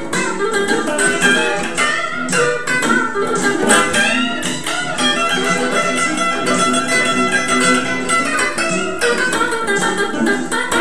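Electric guitar playing blues lines over a recorded blues band track.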